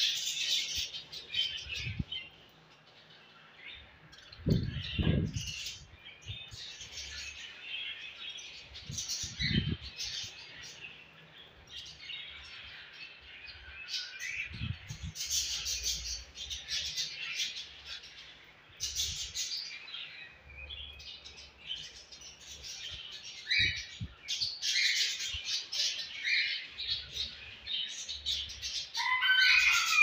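A flock of budgerigars chattering, a fast, high-pitched chirping and warbling that keeps going with short gaps. A few low thuds come in the first ten seconds.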